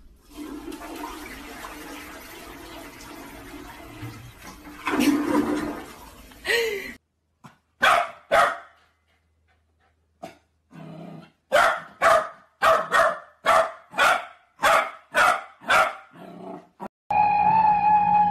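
A toilet flushing, its handle pulled down by a cat, for about the first seven seconds. Then a corgi puppy barks in short sharp yaps: two at first, then a quick run of about eight. Near the end a husky starts a long steady howl.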